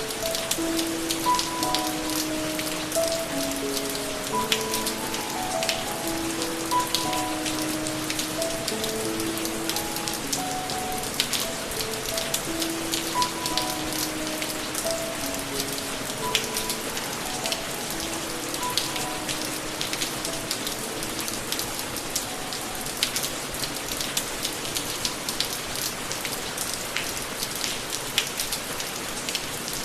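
Steady rain with many distinct drops striking a surface, under a slow, soft melody of single held notes that fades out about two-thirds of the way through, leaving the rain alone.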